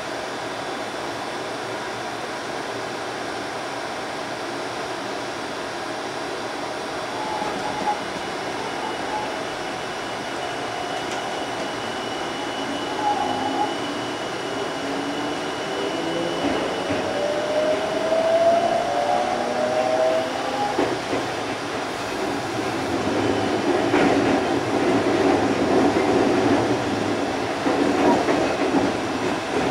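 Odakyu 30000-series EXE Romancecar pulling away and accelerating. A steady hum, partly from the onboard shop's refrigerator, gives way after about twelve seconds to the rising whine of the IGBT VVVF inverter and three-phase induction traction motors. Wheel and rail noise grows louder, with occasional knocks over rail joints.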